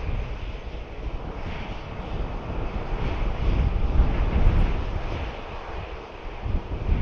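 Boeing 737-800's CFM56-7B turbofan engines running at low taxi thrust, a steady hiss as the jet rolls slowly along. Wind buffets the microphone with an uneven low rumble that swells and fades.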